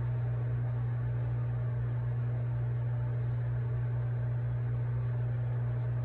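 A steady low hum with no change in pitch or level throughout.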